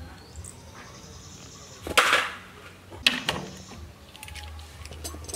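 Two sharp metal knocks about a second apart, a hand tool striking the rusty electric motor, with a few lighter clicks of tool on metal around them.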